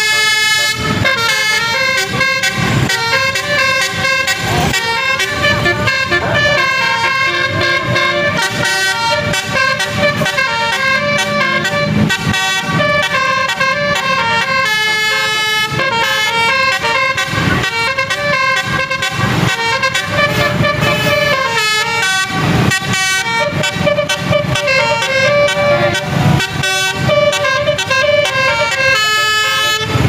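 Basuri telolet horn on a tour bus playing a melody of quick, stepping horn notes.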